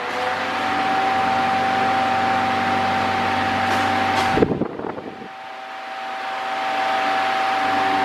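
Mondial Maxi Power V-45-4P-NP 40 cm four-blade fan running on a test: rushing air over a steady motor hum, which the owner finds a little noisy. About four and a half seconds in there are a few clicks, and the sound drops, then builds back up gradually.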